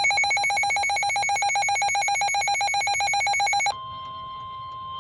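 Emergency alert tones for a flash flood warning. A loud electronic alarm trills rapidly, then cuts off suddenly near the end, leaving a quieter steady single tone.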